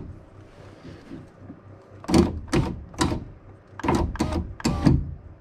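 A Saab 9-3's rear-door power window regulator being run, with a run of sharp knocks, about two a second, starting about two seconds in. The mechanic first takes the knocking for the regulator cable smacking, then for a loose piece of broken glass inside the door.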